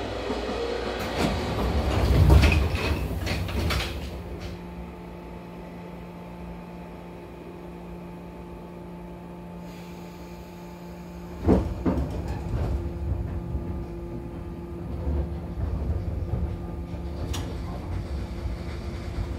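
The doors of a 415 series electric train close with a clatter and knocks in the first few seconds. The standing car then gives a steady low hum, a sharp clunk sounds about 11 seconds in, and the train starts to pull away with a rumble building over the last few seconds.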